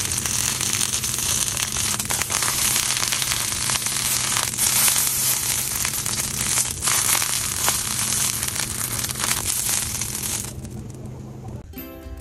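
Fresh roses sizzling and crackling in a hot frying pan, a dense, steady sizzle that dies away about ten and a half seconds in. Music starts at the very end.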